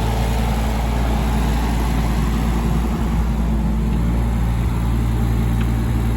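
Case CX18B mini excavator's diesel engine running steadily at constant speed.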